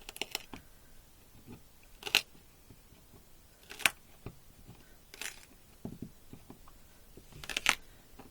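A few short crunching, tearing scrapes with pauses between them: the cut-out plug of plywood and foam being pried and pulled out of a freshly sawn hole in an RV floor.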